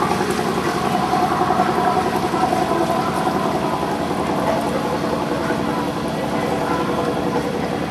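A boat's engine running steadily with an even pulsing note, driving the sailboat along.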